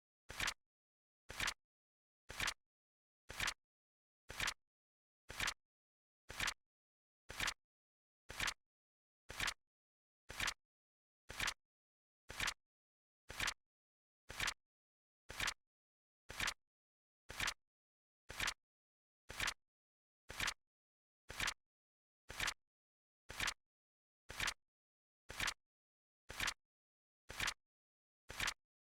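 Flip-clock flap sound effect: a short, sharp flip click once every second, evenly spaced, with silence between.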